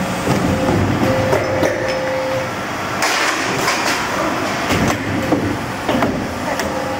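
Automatic double J hook making and welding machine running, steel wire feeding through its straightening rollers, with a continuous mechanical clatter and frequent knocks.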